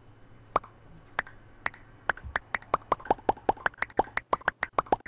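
A run of short hollow knocks, like boards being set down one on another, one every half second or so at first, then speeding up to about five a second, keeping time with cut boards piling up on the saw table.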